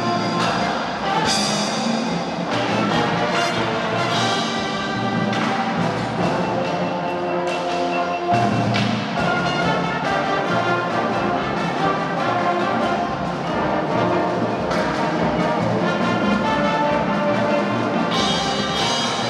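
A marching drum band playing continuously: brass (trumpets, mellophones, sousaphones) over marching snare and tenor drums, with a marimba in the front ensemble.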